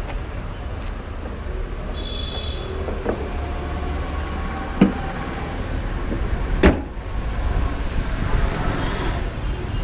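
Tata Nexon's bonnet being shut: a sharp click about halfway in, then a single loud slam about two-thirds of the way through as the bonnet closes. A steady low rumble runs underneath.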